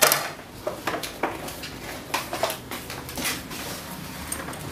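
A metal spoon scraping and tapping in a plastic bowl during spoon-feeding: a string of short clicks and knocks, the loudest right at the start.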